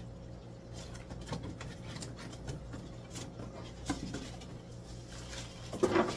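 Scattered small clicks and rustles of a fish shipping box and its bags being handled, over a steady hum of aquarium pumps and filters; a brief louder burst near the end.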